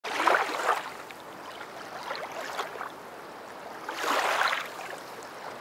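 Splashing water sound effects in a few short bursts, the loudest in the first second and another about four seconds in, over a faint hiss.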